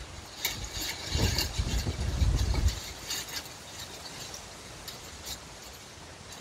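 A gust of wind buffets the microphone with a low rumble for about two seconds, starting about a second in, over a steady rush of wind with crisp rustling and crackling of leaves.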